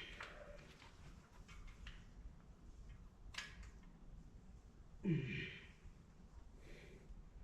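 A cow bawls once, about five seconds in: a short call that falls in pitch. A faint click sounds a little after three seconds.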